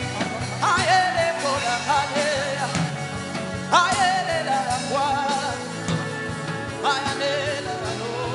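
Slow worship music with a steady keyboard bed. A voice comes in over it in short, sliding sung or chanted phrases about four times.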